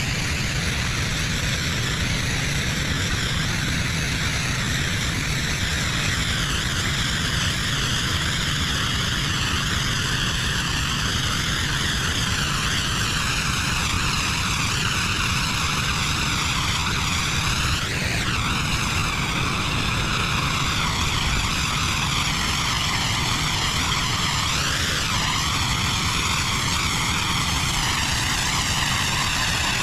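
Pressure washer running steadily, its engine drone under the hiss of a high-pressure water jet striking a hard surface, the hiss shifting in tone as the spray moves.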